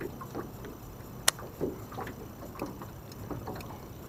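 Water lapping gently against a small fishing boat's hull, over a low steady wind noise, with scattered light knocks and one sharp click about a second in.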